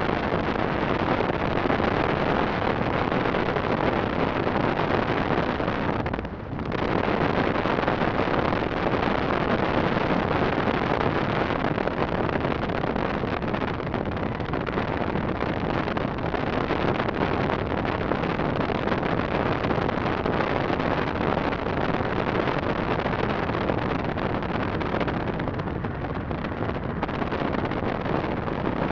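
Steady wind and road noise from a car travelling at about 70–80 mph, with wind buffeting the microphone. The noise drops out briefly about six seconds in.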